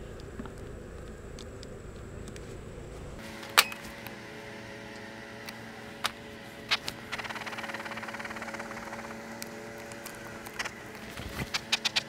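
Honeybees humming steadily at an open hive, over sharp clicks and taps as plastic beetle traps and a bottle of trap oil are handled; the loudest is a single snap a few seconds in. A soft hiss runs for about three seconds midway, and a quick run of taps comes near the end.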